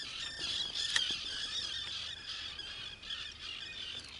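A dense chorus of birds calling over and over: many short, arched, high-pitched calls overlapping without a break. One sharp click about a second in.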